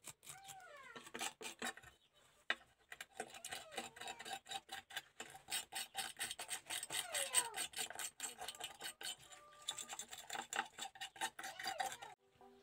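Stiff wire brush scrubbing a small model car body shell in quick back-and-forth scratchy strokes, with a few short squeaks, scraping off paint softened by stripper. Music comes in near the end.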